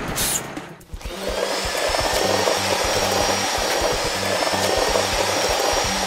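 Cartoon sound effect of a concrete mixer truck running and pouring from its chute: a steady whirring machine noise that starts about a second in, over background music with a repeating bass line.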